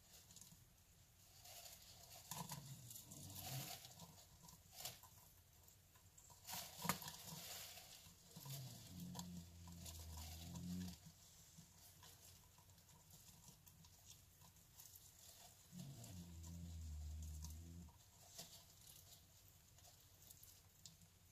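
Near silence: faint room tone with a few scattered light scratches and clicks, and two low hums of about two seconds each, one in the middle and one late.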